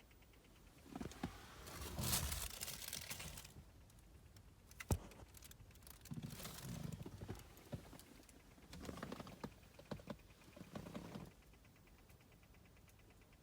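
Faint, rapid, even ticking from a 2018 Honda Odyssey Hybrid that keeps going after the engine is switched off. It is an intermittent abnormal noise whose cause is unknown. Louder rustling and handling noises cover it through the middle, with one sharp click about five seconds in.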